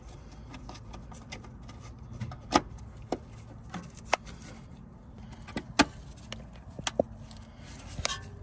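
Irregular sharp plastic clicks and light rattles as a brake pad wear sensor's wire and connector are handled and pushed into their plastic holder, the loudest clicks about two and a half and six seconds in.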